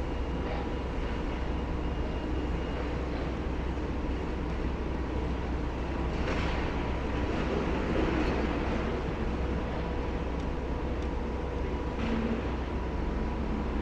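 Steady low rumble of wind on the microphone mixed with distant demolition excavators running, with a few faint clattering noises about six to eight seconds in and again near twelve seconds.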